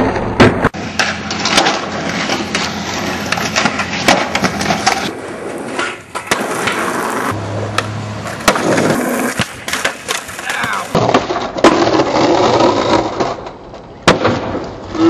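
Skateboards rolling on concrete, with sharp pops and clacks of tricks and landings. The sound changes abruptly several times.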